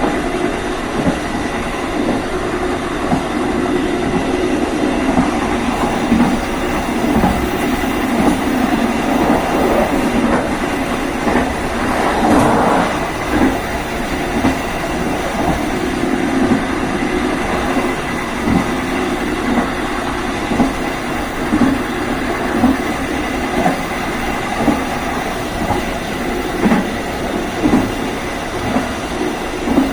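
KA Serayu passenger train running along jointed single track: a steady rumble of steel wheels on rail, with a short knock every second or two as the wheels cross rail joints.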